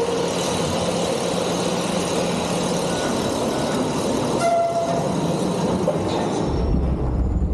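Recreated ore-mill machinery noise from a sound-and-light show: a steady din of the conveyor and jaw crusher working ore, with a deep rumble coming in about six and a half seconds in.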